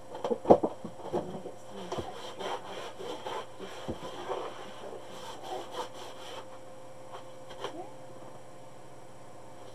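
Paper tissue rustling and rubbing as tissues are pulled from a tissue box and used to wipe up excess oil inside a foam-lined cardboard box. The loudest handling noise comes about half a second in, and the rustling stops after about six and a half seconds.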